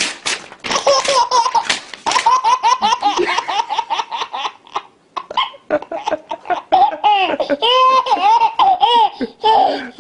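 Baby laughing hard in repeated short belly-laugh bursts, one after another, mixed with the rustle and rip of paper being torn.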